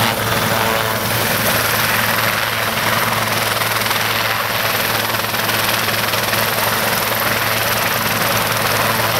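Air ambulance helicopter running on the ground, a steady, unbroken turbine and rotor noise.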